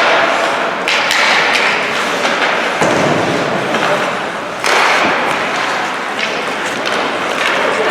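Ice hockey play in a rink: thuds against the boards, with sudden swells of hissing noise about a second in, near three seconds and near five seconds.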